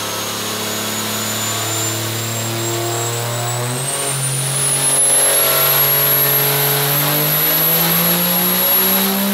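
Turbocharged Cummins diesel pickup engine making a full-throttle pull on a chassis dyno, its pitch climbing in steps as the revs sweep up. A high turbo whistle rises in pitch and then holds over the engine.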